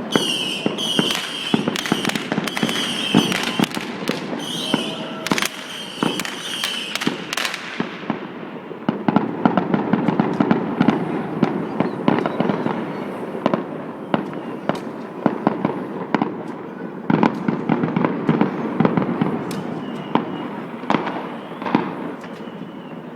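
Many fireworks going off at once: a dense, unbroken run of bangs, pops and crackles. For the first eight seconds a short high whistling tone repeats about once a second over the bangs.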